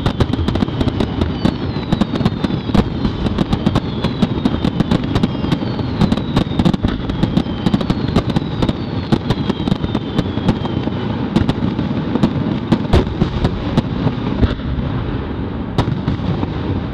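Fireworks finale: a dense, unbroken barrage of bangs and crackles over a continuous rumble, with repeated high whistles falling in pitch through the first part of the barrage.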